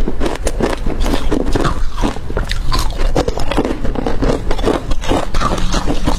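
Close-up crunching of hard crushed ice being bitten, a rapid run of sharp cracks and crackles with no let-up.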